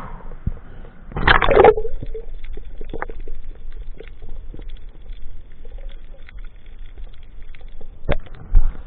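A loud rushing splash about a second in as the camera plunges underwater, then muffled underwater ambience with scattered sharp clicks and crackles, and two louder knocks near the end.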